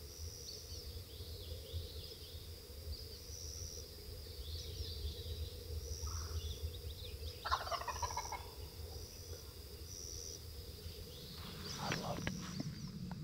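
A distant Osceola wild turkey gobbler gobbling once from the roost, a quick rattling call about seven and a half seconds in.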